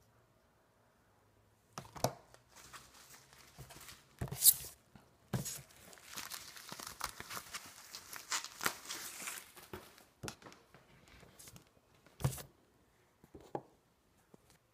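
Packing tape being ripped off a taped cardboard shipping box as it is opened, with the cardboard flaps and packing paper rustling. Irregular rips and crinkling start about two seconds in, with a few sharp, loud rips (the loudest about a third of the way in), and die away shortly before the end.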